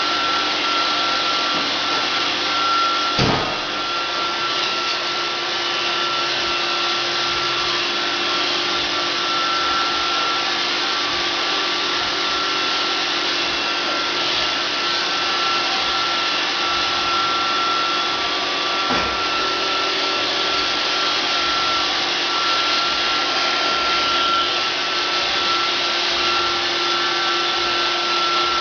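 iRobot Roomba 560 robot vacuum running with a steady whir and a thin high whine. There is a sharp knock about three seconds in and a fainter one near nineteen seconds.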